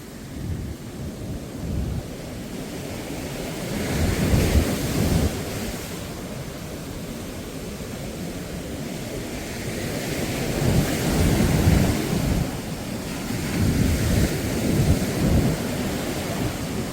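Sea surf washing onto the beach, with low wind rumble buffeting the microphone. The noise swells about four seconds in and again from about ten to fifteen seconds.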